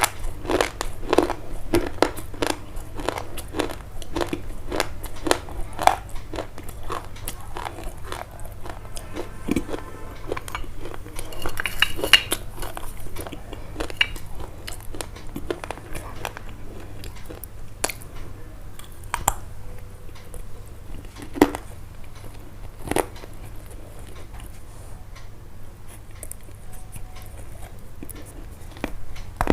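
Close, crisp crunching: a rapid run of short cracks and crunches that thins out to scattered single ones after about ten seconds, over a low steady hum.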